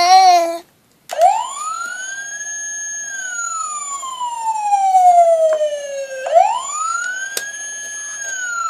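Toy police truck's electronic siren wailing: a slow rise, a long falling wail, then another rise about six seconds in. A short voice is heard at the very start, before the siren begins.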